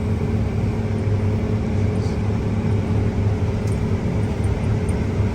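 Truck engine running with a steady low drone, heard from inside the cab while driving.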